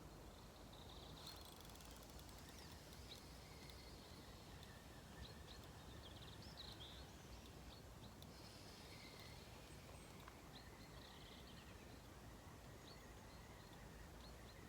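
Near silence: faint outdoor background haze with scattered, faint high bird chirps throughout.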